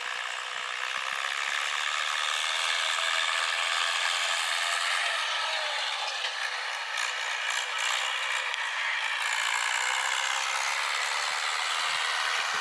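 Mahindra 475 DI tractor's diesel engine running steadily with a mechanical rattle.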